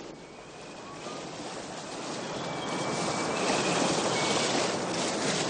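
Wind and sea rushing aboard a square-rigged sailing ship at speed, swelling louder over the first few seconds, with faint thin whistling tones now and then.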